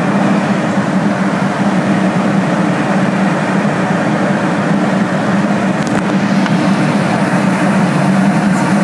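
Steady cabin noise of an airliner in flight: engine and airflow noise with a steady low hum underneath.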